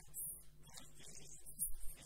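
Only speech: a man lecturing over a microphone.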